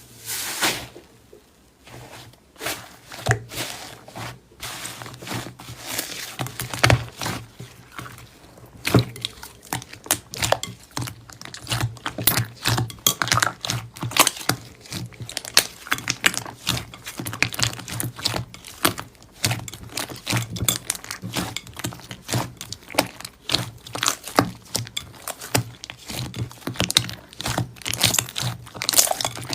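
Slime being squeezed and pressed by hand, making many small crackling, popping clicks that grow denser after the first few seconds.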